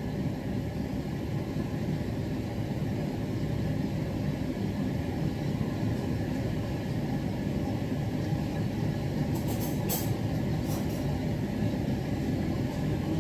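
Chicken sinigang broth boiling hard in an uncovered wok, a steady bubbling rumble, with a few light clicks about ten seconds in.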